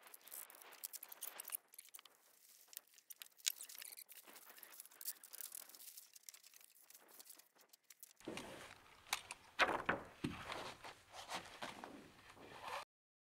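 Faint rustling and crinkling of a plastic roof underlay membrane, with scattered sharp clicks and ticks, as a roofer works across it in a climbing harness. The sound is sparse at first, becomes fuller and busier about two-thirds in, and cuts off suddenly near the end.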